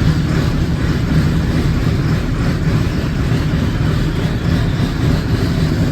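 Case IH 2188 combine's six-cylinder Cummins diesel engine running steadily with a heavy low rumble, shortly after a cold start.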